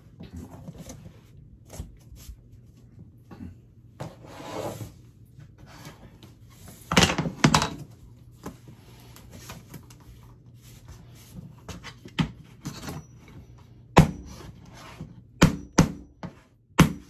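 Floor planks being laid: a plank scraping as it slides into place, then a run of sharp knocks, a close cluster about seven seconds in and single ones later, as the planks are seated and tapped down.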